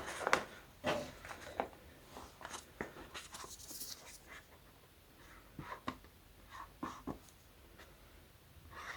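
Marker pen drawing on a rubber balloon: faint, scattered short strokes and taps, with a brief higher scratch about four seconds in.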